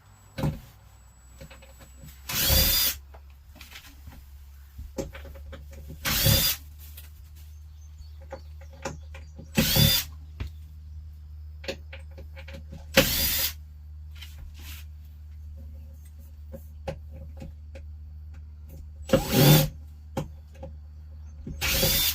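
Power drill run in six short bursts of about half a second to a second, each spinning up with a rising whine, over a steady low hum.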